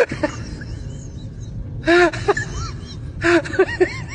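An animal's short high-pitched calls, each rising and falling in pitch. One comes about two seconds in, then a quick run of three or four near the end.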